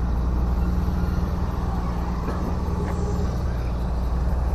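A machine running with a steady low hum; the hum thins out about three seconds in.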